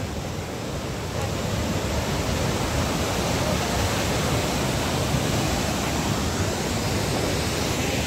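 Steady, unbroken rush of the Amritdhara waterfall pouring over a rock ledge close below.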